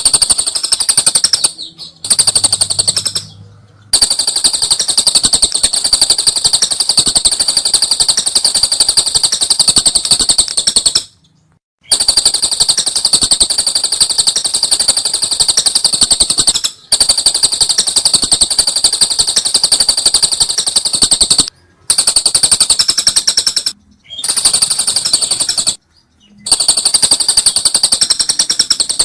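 Lovebird 'ngekek' song: long runs of rapid, high-pitched rattling trill, several seconds each, broken by short pauses. The longest run lasts about seven seconds.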